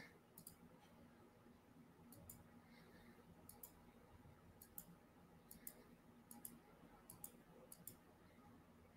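Faint computer mouse clicks, most of them quick press-and-release pairs, coming irregularly about once a second while files and folders are being selected.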